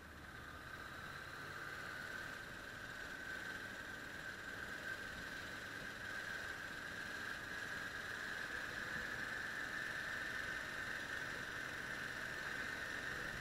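Motorcycle riding noise heard muffled through an action camera's sealed waterproof case: a steady, dull drone of engine and passing air, growing a little louder over the first few seconds.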